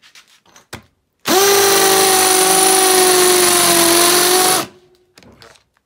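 Makita XPH10 cordless hammer drill hammer-drilling into a concrete block. It starts abruptly about a second in, runs at a steady whine over a loud grinding rattle for about three seconds, and stops sharply.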